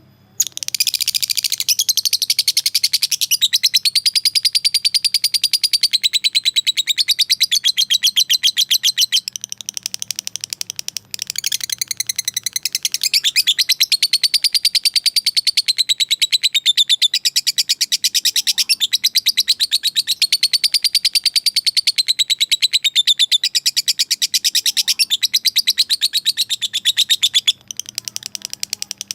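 A fighter lovebird giving its long chattering call ("ngekek panjang"): a very fast, high-pitched run of notes whose pitch wavers up and down. It breaks briefly about eleven seconds in and goes softer near the end. It is the call a lovebird uses to challenge rivals, and it tends to set other lovebirds answering.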